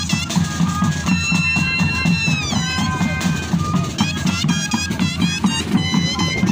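Moseñada music: a troupe of moseño cane flutes playing a melody with sliding notes over a steady drum beat.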